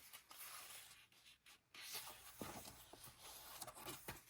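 Faint rustling of paper planner pages being turned, with a couple of soft taps.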